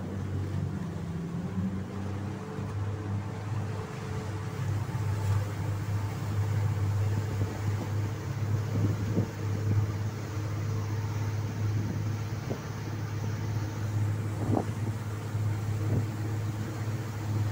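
Speedboat engine running steadily under way, a low even drone, with water rushing and hissing in the wake alongside the hull.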